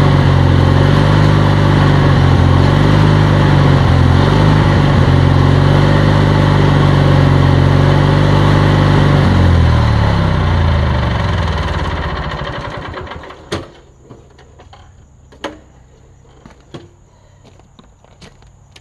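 Riding lawn tractor engine running at a steady speed with a rototiller engaged, then winding down in pitch and stopping about ten to thirteen seconds in as it is shut off. A few sharp clicks and knocks follow.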